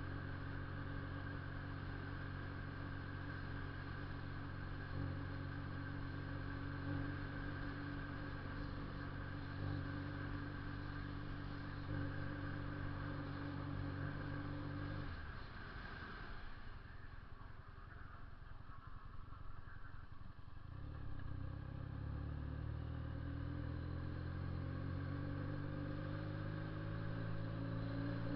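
Honda CB 400 II motorcycle's twin-cylinder engine and loud exhaust, running steadily under way. About halfway through the throttle is closed for several seconds, then the engine pulls again with a rising pitch near the end.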